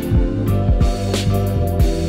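Background music with a steady beat: held bass and chord notes over regular drum hits.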